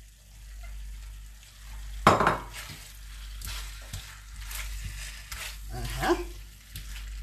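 A spatula stirring and scraping chicken, peppers and scallions around a stainless steel skillet over the heat, the food sizzling. A sharp clank about two seconds in starts the stirring, and scraping strokes go on after it.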